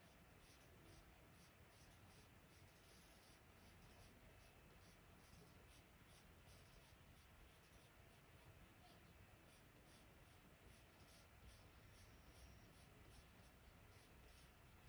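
Faint scratching of a wax-based Prismacolor Premier coloured pencil shading on paper: quick, repeated back-and-forth strokes.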